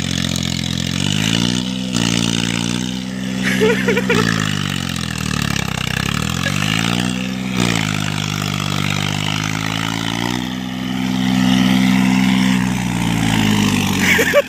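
Farmtrac 60 tractor's diesel engine revving hard and easing off again and again while straining to drive out of deep mud, the pitch climbing, holding high for a few seconds, then dropping.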